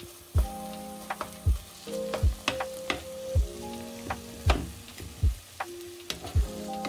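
Background music with a steady beat, a low kick about every three-quarters of a second over held chords. Under it, chicken mince and onions sizzle faintly in a pan as a spatula stirs them.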